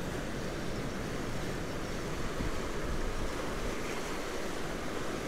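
Choppy surf washing against jetty rocks: a steady, even rush of water, with some wind on the microphone.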